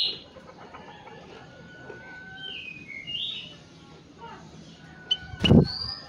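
Kutilang emas bulbul giving a few soft, sliding chirps between louder song phrases. A short, loud, low sound comes near the end.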